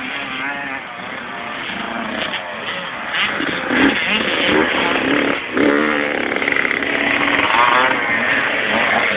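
Motocross bike engines revving, more than one at once, their pitch climbing and dropping as they accelerate and shift gear; louder from about four seconds in.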